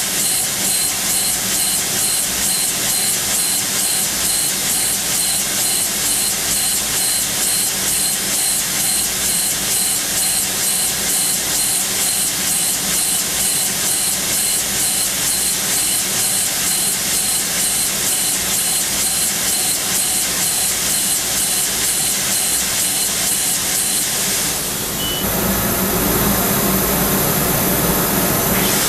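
Machining center spindle at 13,000 rpm peck-drilling hardened SKD61 tool steel with a 1 mm carbide drill: a steady hiss with a high tone and an even, rapid pulsing from the repeated pecks. About 25 seconds in the sound dips briefly, then turns louder and rougher for the last few seconds.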